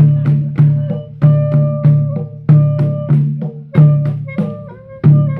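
Klong tum and klong hang drums played through an amplified sound system: heavy, low ringing drum strokes on a steady beat about every 0.6 s, with lighter strokes in between and sustained pitched tones over them.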